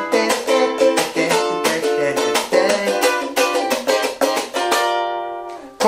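Ukulele strummed fast through a chord progression, with syncopated accents and muted percussive chops (cutting) in the strumming. Near the end a last chord rings out and fades.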